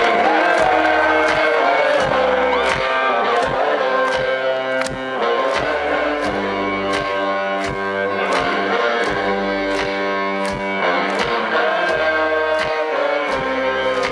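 Live rock band playing a slow, heavy instrumental intro: a steady drum beat under an electric guitar riff that slides down in pitch, with no vocals yet.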